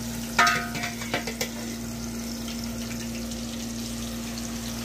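Chicken pieces sizzling in hot oil in a small frying pan, with a sharp metallic clink of the spoon against the pan about half a second in and a few lighter knocks just after. A steady low hum runs underneath.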